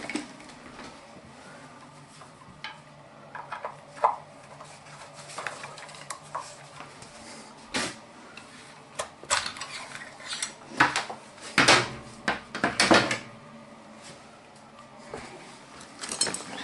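Metal hand tools clinking and rattling as they are rummaged through in a soft tool bag, with scattered clicks and knocks. The loudest cluster comes in the second half.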